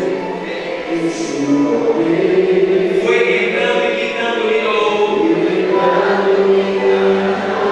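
Many voices singing a slow worship song together, with long held notes.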